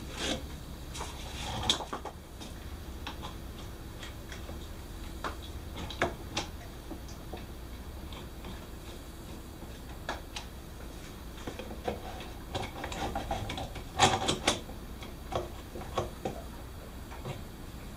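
Scattered clicks and knocks of bar clamps and wooden parts being handled and adjusted on a workbench, with a cluster of sharper knocks about fourteen seconds in.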